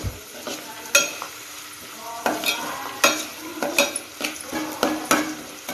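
A steel spoon stirring chopped onions and curry leaves as they fry in oil in a metal pot, over a steady sizzle. The spoon scrapes and clinks against the pot several times at irregular intervals.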